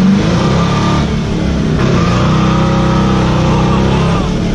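Twin-turbo LBZ Duramax diesel V8 running under acceleration in a Chevy Nova, heard from inside the cabin.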